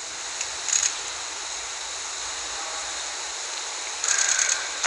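Crowd noise in a weightlifting arena, a steady roar that builds as the lifter pulls the barbell from the platform and grows louder about four seconds in.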